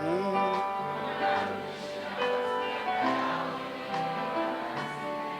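Background music with sustained chords that change every second or so.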